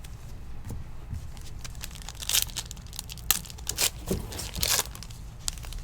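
Foil wrapper of a trading card pack being torn open and crinkled, in several short crackly bursts through the middle stretch.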